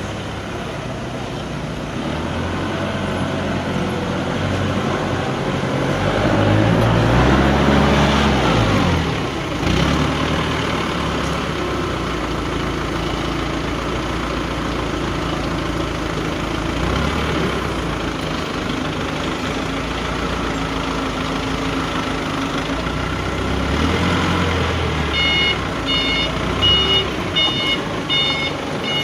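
A heavy vehicle's diesel engine running, revving up and then settling back about a third of the way in. Near the end a reversing alarm starts beeping about twice a second.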